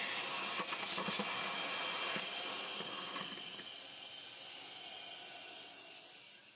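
Vacuum cleaner sucking leaves and debris out of an engine bay through its hose: a steady suction hiss with a few crackles about a second in, fading away near the end.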